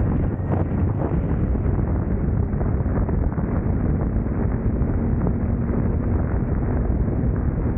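Steady wind rush on the microphone of a BMW K1600 GTL touring motorcycle under way, with the bike's inline-six engine running steadily beneath it.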